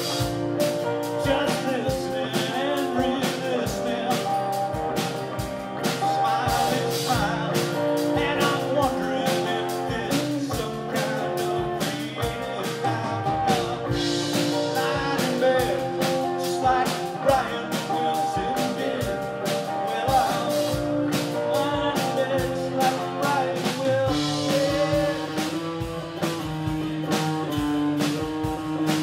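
Live rock band playing: electric and acoustic guitars over a drum kit, with steady drum hits throughout.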